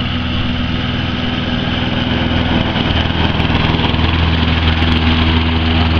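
Walk-behind petrol rotary lawn mower running steadily with its throttle held wide open, growing louder as it circles closer.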